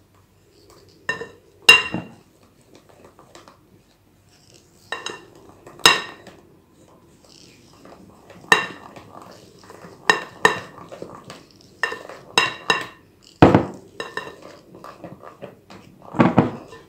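A silicone-headed utensil stirring flour in a large glass mixing bowl, knocking against the glass in about a dozen irregular clinks that ring briefly. Soft scraping and rustling fill the gaps, and two duller, heavier knocks come near the end.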